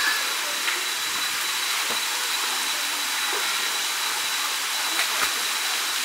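Forest stream water running over rocks and small cascades: a steady, even hiss. A thin, steady high tone runs on above it.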